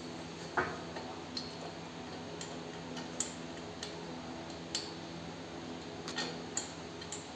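Irregular sharp metallic clinks and taps as steel pipes of a seed drill's handle are handled and set down among other steel pipes, with a steady low hum underneath. The loudest knock comes about half a second in.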